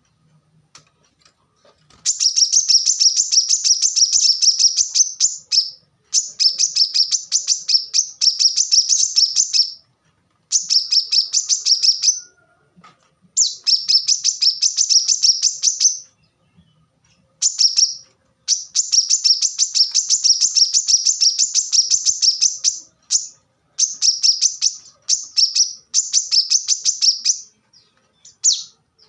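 Brown-throated sunbird (kolibri kelapa) singing: rapid strings of sharp, high notes in bursts of one to four seconds, separated by short pauses, starting about two seconds in.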